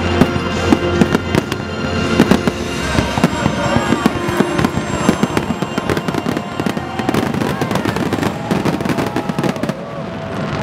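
Fireworks going off in rapid, irregular succession, sharp bangs and crackles, with music playing underneath.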